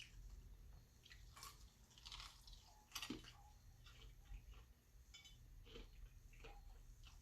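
A person chewing food: faint, scattered wet clicks and mouth smacks, the loudest about three seconds in.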